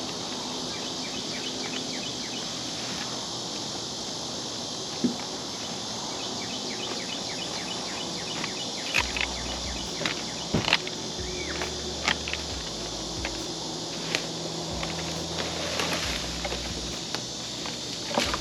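Outdoor ambience: a steady high insect drone with scattered short chirps, and a few sharp clicks and knocks.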